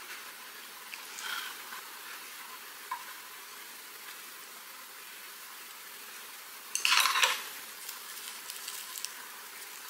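Small handling sounds of chopsticks and food as a seaweed wrap is filled, with a few light clicks, then a louder crinkly rustle about seven seconds in as the wrap is folded in the hands.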